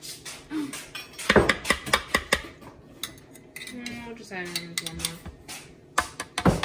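Metal utensil clinking against a glass pickle jar and a plastic food-processor bowl as pickle slices are fished out and dropped in. There is a cluster of sharp clinks about a second in and another near the end.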